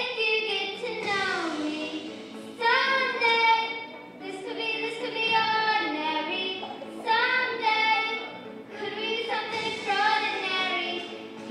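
Young girls singing a song together into a handheld microphone, in phrases of a second or two with short breaths between.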